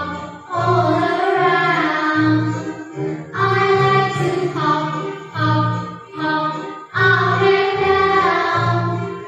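A children's song: a sung melody over a steady, bouncing bass beat.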